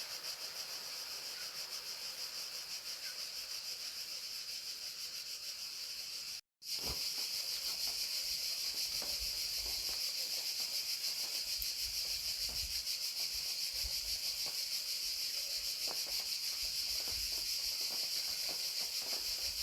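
Crickets chirping in a steady, dense, high-pitched chorus, with rain pattering in small scattered drops. The sound cuts out completely for a moment about six seconds in.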